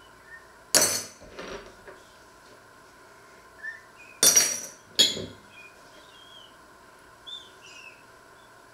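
Crockery being handled on a wooden worktop: three sharp clinks and knocks of a cup and spoons, with smaller knocks after the first. A few faint high chirps sound in between.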